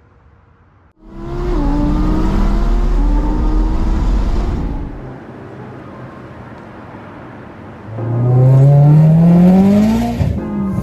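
A car engine accelerating hard twice. The first loud pull starts about a second in and lasts some three seconds. After a quieter spell, a second pull rises steadily in pitch near the end.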